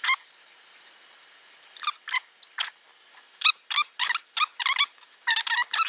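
A fillet knife worked back and forth between a crappie fillet and its skin on a plastic cutting board, giving a run of short, high squeaks, about a dozen, most of them from about two seconds in and bunched near the end.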